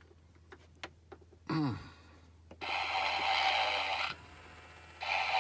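Snoring Santa Homer Simpson talking figure playing a snore through its small speaker: two hissy snore breaths, each about a second and a half long, the second starting about two and a half seconds after the first. Faint clicks and a short falling tone come before them.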